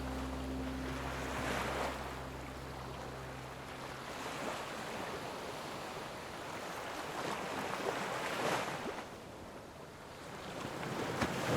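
Gentle sea waves washing against rocks, swelling and ebbing every few seconds. A low, steady music drone fades out in the first few seconds.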